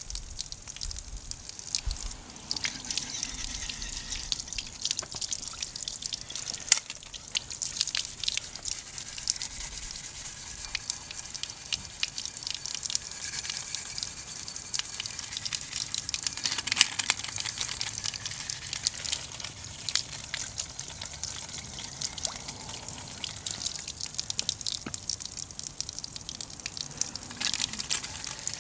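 A pot of oden broth bubbling at a simmer over a wood stove fire, with dense, irregular small pops and clicks over a steady hiss.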